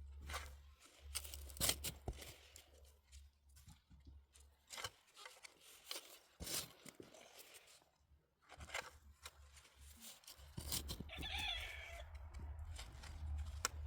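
Rustling, crackling and scraping of soil and potato plants being handled while potatoes are dug. The sound is a run of short irregular crackles and scrapes. A low rumble sits under it at the start and again from about ten seconds in, and a short wavering pitched call comes about eleven seconds in.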